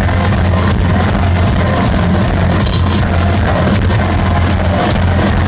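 Heavy metal band playing live and loud: drums, bass and guitar, with the singer shouting the vocals into the microphone.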